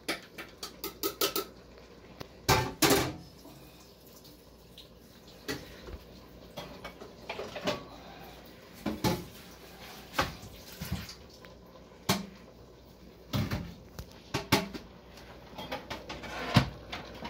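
Kitchen dishes, pots and utensils being handled at a sink, clattering and knocking in scattered sharp strikes, with a quick run of light clicks about a second in.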